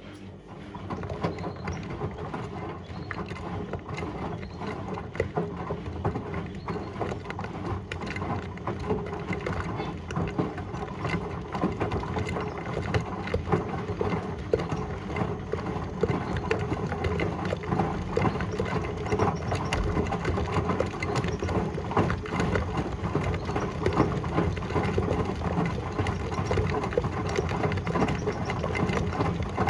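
Whirlpool washing machine running with a load of water balloons, a dense, continuous rattling and clattering full of sharp knocks. It sets in about half a second in and grows a little louder.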